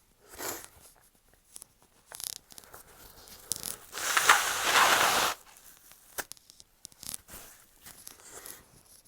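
A person's nose giving a loud, rough rush of air of about a second and a half, starting about four seconds in and stopping abruptly, during an allergic sneezing fit. Softer breaths, sniffles and small rustling clicks come before and after it.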